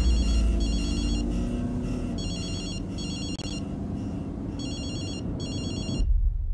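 Mobile phone ringing inside a car: an electronic trilling ringtone in three double rings, over the low drone of the car. The ringing stops near the end, where a louder low rumble comes in.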